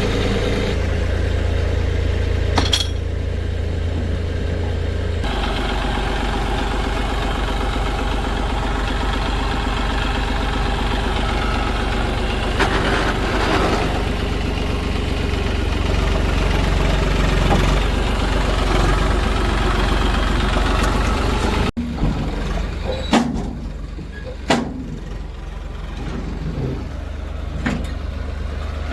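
Heavy diesel engine running steadily at a low pitch. About three-quarters of the way through the sound breaks off abruptly and continues quieter, with a few sharp knocks.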